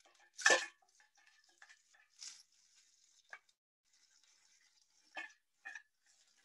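Fried tofu being tipped from a small metal pot into a wok: a metal clatter about half a second in, then a faint sizzle, and two light knocks of a utensil against the pot near the end.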